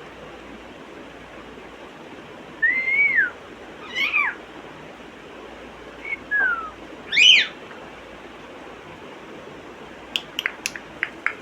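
African grey parrot giving four short whistled calls that rise and fall in pitch, followed near the end by a quick run of sharp clicks.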